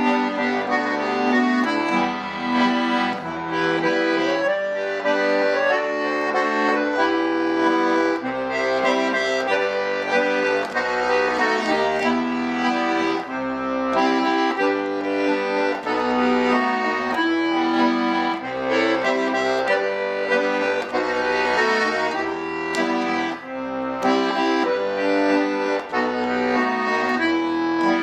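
Chromatic button accordion (bayan) playing a melody with chords and bass, without a break.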